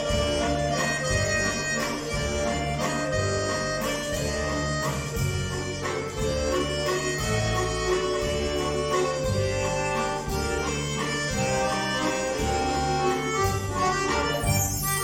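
Two bayans (chromatic button accordions) playing a duet: a melody of held and moving notes over a pulsing bass-and-chord accompaniment.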